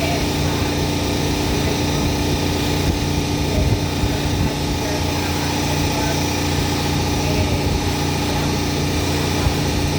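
A small engine running steadily at constant speed, an even, unbroken drone.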